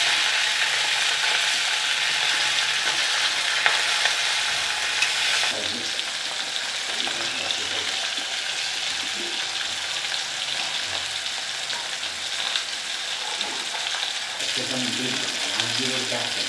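Mackerel shallow-frying in hot coconut oil in a cast-iron pan: a steady crackling sizzle as the fish fries crisp, dipping slightly in level about five seconds in.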